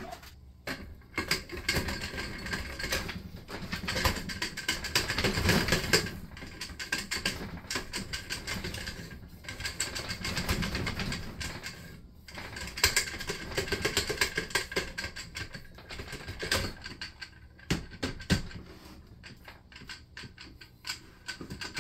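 Rapid, irregular metallic clicking and rattling of a 4L60E automatic transmission's clutch drum and clutch plates as the drum is twisted back and forth by hand so the plates line up on their splines and the drum seats, with brief pauses about nine and twelve seconds in.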